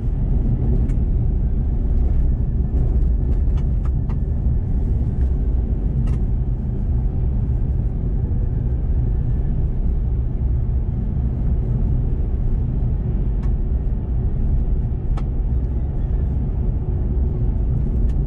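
Steady low rumble of a Chevrolet Colorado Z71 pickup driving on a gravel road, heard from inside the cab: tyre and road noise with the engine underneath. A few scattered sharp ticks cut through it.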